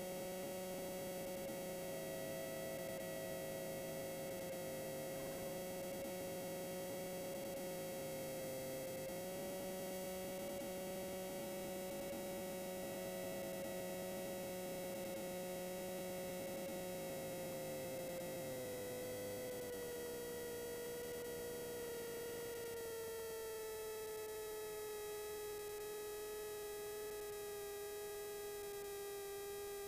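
Rider MD3 ultralight's engine as a steady drone whose pitch falls in steps about two-thirds of the way through, then settles lower as power is taken off.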